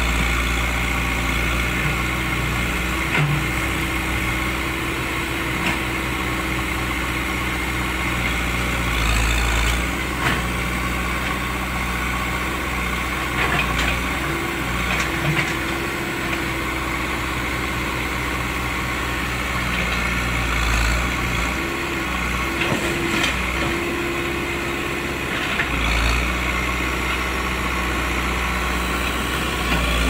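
Caterpillar 424B backhoe loader's diesel engine running steadily while the backhoe works a pile of firewood, the engine note swelling a few times under load, with a few short knocks.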